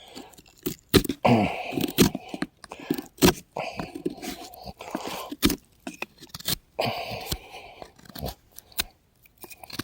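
Stainless steel multitool knife blade cutting into a hardwood stick: irregular scraping, crunching strokes of steel through wood, with sharp cracks in between.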